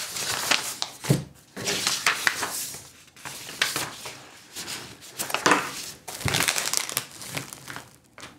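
Paper sheets and plastic anti-static parts bags rustling and crinkling as they are handled, in irregular bursts that die away near the end.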